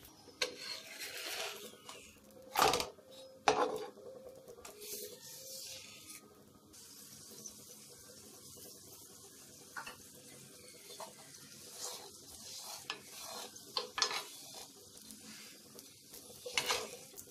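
A paratha sizzling faintly in ghee on a hot tawa while a steel spoon scrapes and clinks against it, spreading the ghee, with a few sharp clinks of metal on the griddle. A louder clatter near the end as the paratha is turned.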